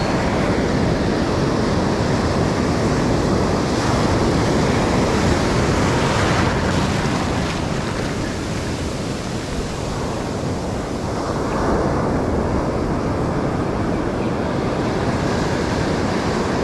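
Ocean surf washing and breaking around the wader's legs, a steady rush that swells louder a few times as waves come in, with wind buffeting the microphone.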